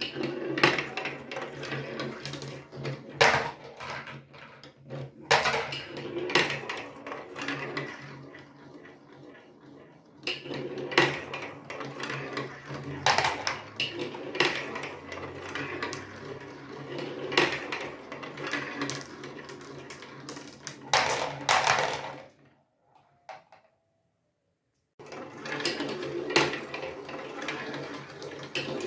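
Marbles rolling and clattering down a plastic marble-run track, a busy stream of clicks and rattles over a low rolling rumble. The sound cuts out for about two seconds in the last third, then the clattering resumes.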